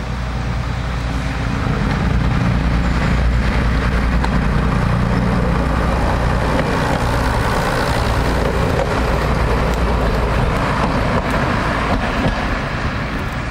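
A first-generation British Rail single-car diesel railcar ('bubble car') passes close by under power. Its underfloor diesel engines run with a steady low drone, mixed with the noise of its wheels on the track. It grows louder over the first couple of seconds as it draws near, then stays loud as it goes by.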